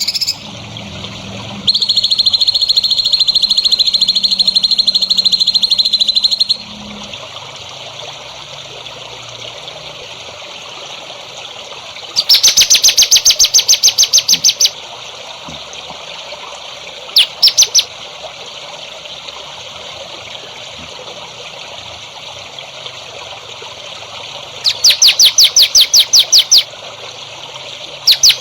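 Songbird calls over a steady trickle of running water: a held buzzing trill early on, then loud bursts of rapid, evenly repeated high chattering notes, several seconds apart, with a short burst between them.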